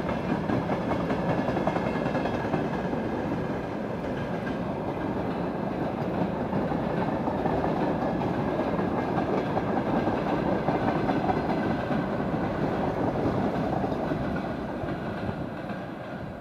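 Freight train wagons rolling past, their wheels clattering over the rail joints in a continuous rumble that dies away near the end.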